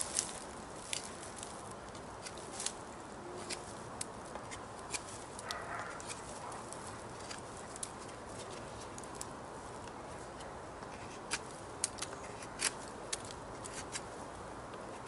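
Thick 8 mm Camillus Carbon V kukri whittling a wooden stick: sharp, irregular clicks, roughly one a second, as the blade bites and shavings come off.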